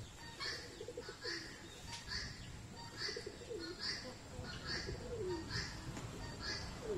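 Carrier pigeons cooing, low coos that fall in pitch and come several times, over a short high chirp from another bird that repeats a little more often than once a second.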